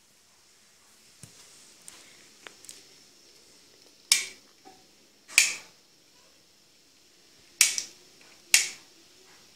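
Wall light switch clicked four times, in two pairs, switching the under-cabinet LED strip off and on.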